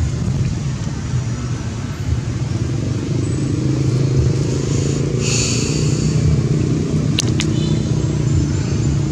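Steady low rumble of a motor vehicle engine running close by. A brief higher-pitched sound comes about five seconds in, and two sharp clicks come a couple of seconds later.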